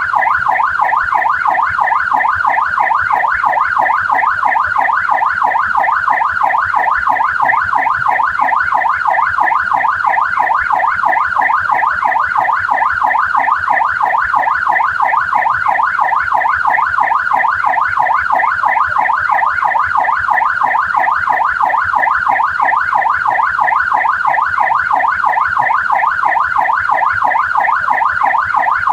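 Australian police car siren in yelp mode: a loud, continuous rapid up-and-down wail repeating at an even pace without a break.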